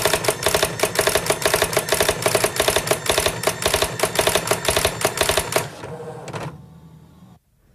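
Fast, even mechanical clatter over a steady hum, which stops about five and a half seconds in and then fades away.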